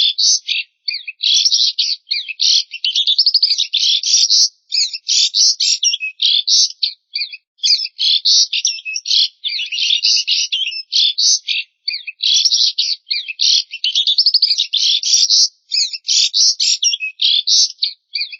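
A small songbird singing long, fast runs of high twittering and chattering notes, broken by short pauses.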